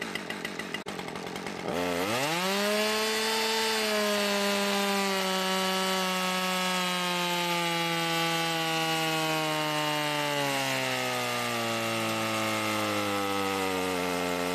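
Husqvarna 550 XP Mark II two-stroke chainsaw engine idling, then snapped to full throttle about two seconds in. It is held wide open on a dyno for a power run, its pitch sagging slowly as the dyno loads it down.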